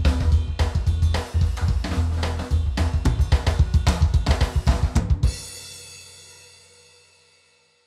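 Background music track with a driving drum-kit beat and heavy bass, ending about five seconds in on a final chord that rings on and fades out.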